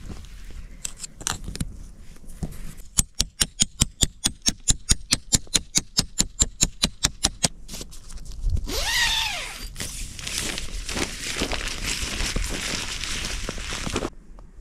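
Tent pitching in snow: a run of sharp, even clicks, about six a second, from the guy-line and peg hardware while the tent's lines are tightened, then a short rising-and-falling squeal and footsteps crunching in packed snow.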